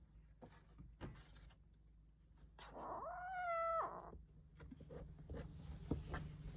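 A kitten meowing once, a single drawn-out call a little under three seconds in that lasts just over a second, with faint taps and rustling around it.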